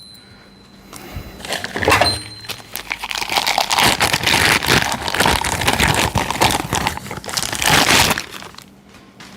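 Crinkling wrapping being handled and pulled off a large impact socket, a dense rustle that starts about a second and a half in and dies away near the end.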